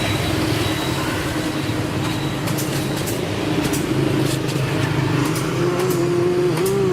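A motor running steadily with a low hum. Near the end an engine-like drone wavers in pitch, and faint ticks come through.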